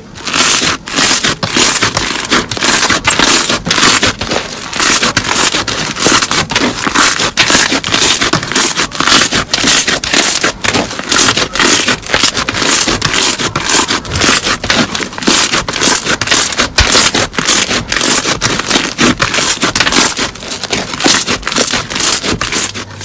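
Crunchy slime being squeezed and pressed by hand, giving a dense, continuous run of crackles and pops.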